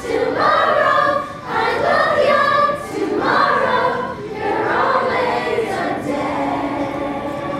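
A large cast of young performers singing together in chorus, in long sung phrases with short breaks between them.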